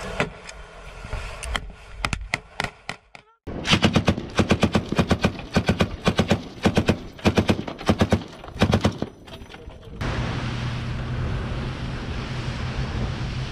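Boat-mounted machine gun firing, first a few scattered shots, then several rapid bursts in quick succession. In the last few seconds, the firing stops and a steady engine drone with wind noise takes over.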